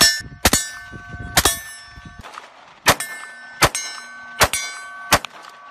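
Seven single gunshots at an uneven pace, each hit followed by a metallic ring from a struck steel target that hangs on at a few steady pitches between shots.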